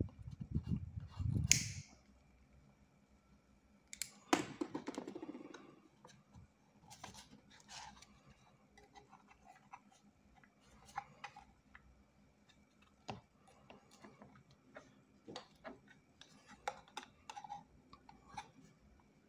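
Handling noises of small white PVC-sheet plastic parts on a cutting mat: rubbing and pressing for the first two seconds, a clatter about four seconds in, then scattered light taps and clicks.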